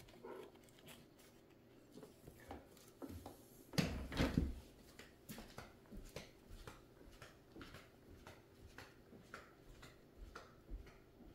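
Small clicks and taps of sewing machine parts and screws being handled and cleaned on a work surface, with a louder brief clatter about four seconds in.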